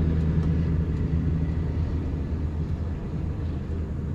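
Semi-truck diesel engine idling, a steady low hum that eases slightly over the few seconds.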